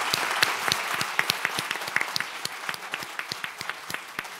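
Audience applause: many people clapping, gradually thinning and fading out.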